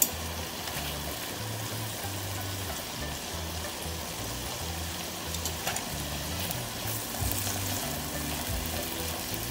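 Chicken breast strips sizzling in butter and oil in a frying pan, with a steady hiss. Background music with a bass line plays over it.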